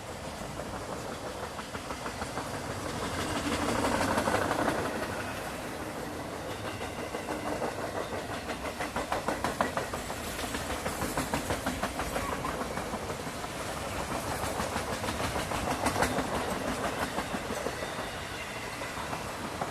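Freight train cars rolling past, wheels clicking rhythmically over the rail joints, with the sound swelling as cars go by.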